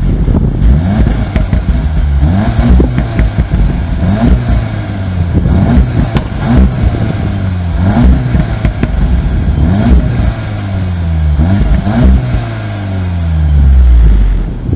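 Volkswagen Golf R's turbocharged 2.0-litre four-cylinder engine revving up and dropping back about every two seconds, six times over, then running steadily and at its loudest near the end.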